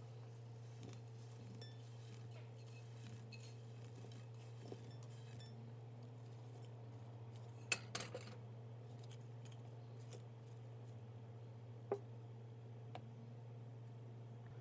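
Faint scraping as a wooden spatula pushes fried diced potatoes out of a nonstick frying pan into a stainless steel bowl, with small clicks and two sharp metal clinks, one about eight seconds in and one about twelve seconds in. A steady low hum runs underneath.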